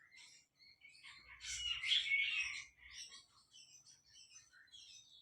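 Small birds chirping and twittering in quick, high-pitched calls, loudest in a flurry about a second and a half to two and a half seconds in.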